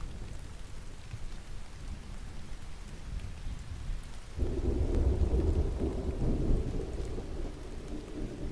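Steady rain with a low rumble of thunder; about four and a half seconds in a louder roll of thunder breaks in, swells for a couple of seconds and slowly dies away.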